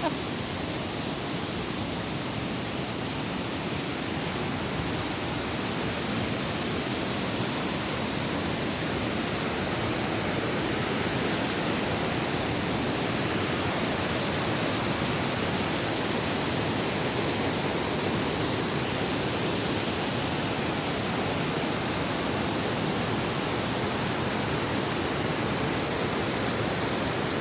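Waterfall: a steady, even rush of falling water that grows a little louder about six seconds in.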